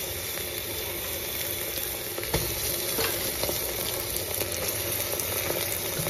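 Freshly added raw mutton pieces sizzling steadily as they fry in hot oil with browned onions and whole spices in a pressure cooker pot. A single knock comes a little over two seconds in.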